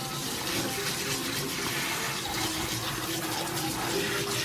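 Kitchen tap water running steadily while a live crab is rinsed in a metal basin.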